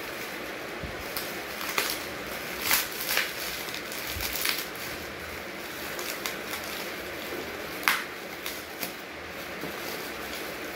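Plastic bubble wrap being pulled open and unwrapped by hand: irregular crinkling and crackling, with the sharpest crackle about eight seconds in.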